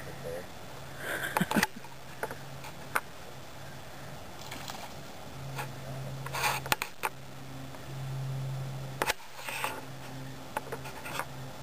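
Handling noise on a handheld phone camera: fingers tapping and rubbing on it in three short bursts of clicks and scrapes, over a low steady hum.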